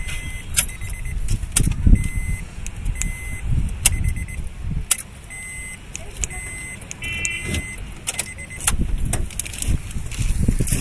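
Honda car's electronic chime beeping in short repeated beeps, with sharp clicks from the ignition key being switched on and off and from the central door locks cycling to confirm remote-learning mode. A low rumble sits underneath.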